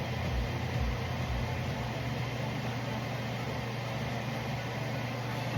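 A steady low mechanical hum over an even background noise, with a low throbbing about twice a second that fades out about two seconds in.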